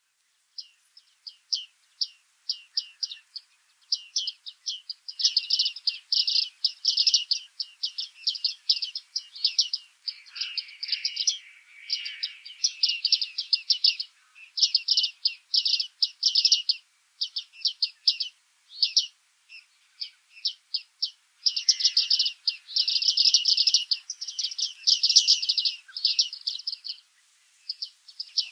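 Bearded tits calling: rapid runs of short, high ticking calls, broken by brief pauses.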